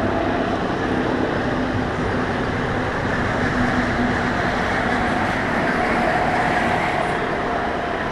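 Diesel-hauled Kamandaka passenger train running past: a steady rumble of wheels on rail with a faint steady hum over it.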